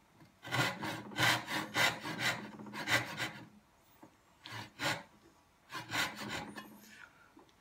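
Dovetail backsaw cutting down a half-blind dovetail socket in a board held in a vise. There is a run of quick back-and-forth strokes, about three a second, lasting some three seconds, then two shorter runs after brief pauses.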